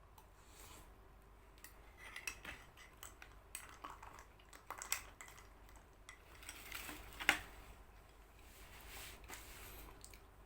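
Faint clinks and scrapes of a spoon against its dish while scooping a jelly-like cough remedy, with scattered light clicks and one sharper clink a little past the middle.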